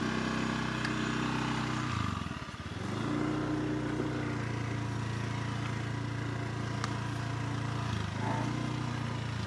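Small motor scooter engine running while being ridden. Its pitch drops about two seconds in, comes back up around three seconds, and dips briefly once more near the end.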